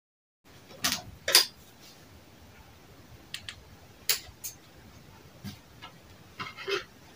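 Scattered light clicks and taps of sewing tools and materials being handled on a tailor's work table, the loudest pair about a second in. The sound starts abruptly about half a second in, after dead silence.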